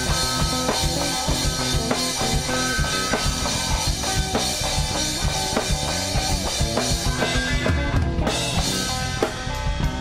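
Music with a drum-kit beat, kick and snare hits in a steady rhythm under sustained pitched instruments.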